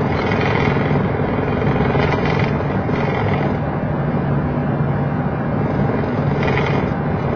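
Steady cabin noise in a Boeing 737 cockpit while taxiing: engines at idle and airflow from the air conditioning, an even rush with a low steady drone under it.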